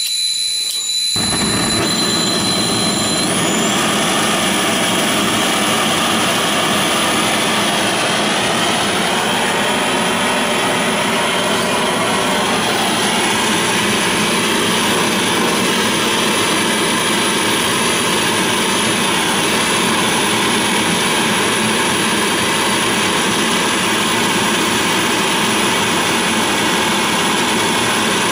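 Gas brazing torch burning with a steady, loud rushing noise as it heats a small copper boiler joint for silver soldering. A faint high whistle sits over it for the first few seconds.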